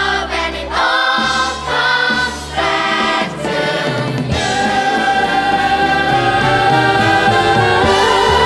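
Recorded choral music: voices sing a few short phrases, then from about halfway through hold one long chord.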